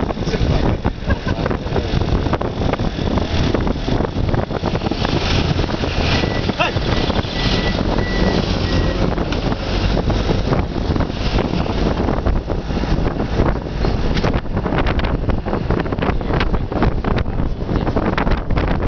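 Wind rushing over the microphone at the window of a moving bus, over the steady low rumble of its engine and tyres on the road.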